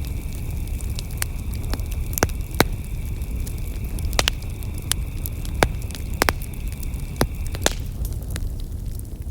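Campfire burning, with a steady low rush of flame and irregular sharp crackles and pops from the burning wood. A thin steady high tone runs underneath and stops near the end.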